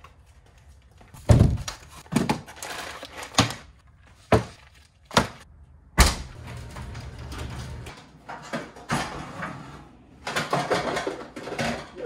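Household items being taken off wooden cabinet shelves and set down: a string of separate knocks and thunks about a second apart, then a busier clatter near the end.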